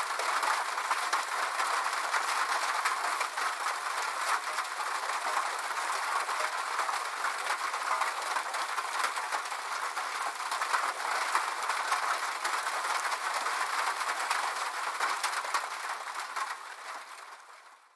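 Rain pattering steadily on a sheet-metal roof, a dense crackle of countless small drops, fading out near the end.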